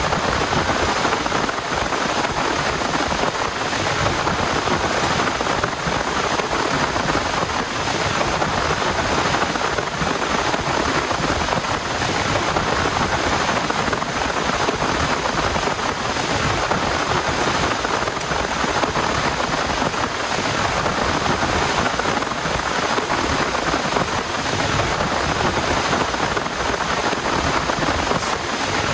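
Heavy rain falling steadily: a loud, even, unbroken hiss of downpour.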